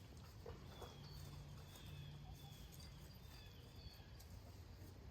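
Near silence: faint background of short, high, slightly falling chirps from a bird, repeating about once a second over a low hum.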